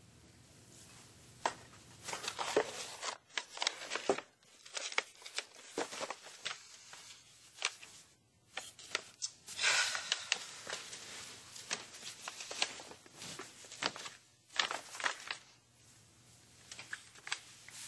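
Paper and fabric wrapping rustling and crinkling as items are handled in a box, in irregular short crackles with a longer rustle about ten seconds in.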